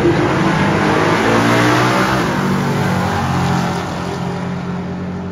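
Two drag racing cars launching and accelerating hard side by side, their engines climbing in pitch as they pull through the run, then fading as the cars draw away down the strip near the end.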